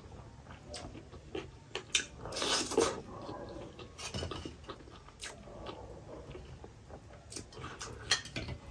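Close-miked eating by hand: fingertips tapping and scraping against a stainless steel bowl of chicken-and-potato curry, with scattered light clinks, between chewing and wet mouth sounds. A louder, longer mouth sound comes about two and a half seconds in.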